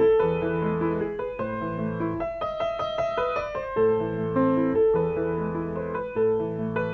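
Worlde W8820B digital piano being played: a slow melody over held low chords, with a new chord struck every second or so.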